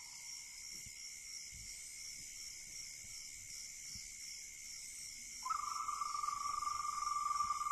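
Ambient soundtrack: a steady, high, insect-like chirring that pulses evenly. About five and a half seconds in, a held pure electronic tone joins it.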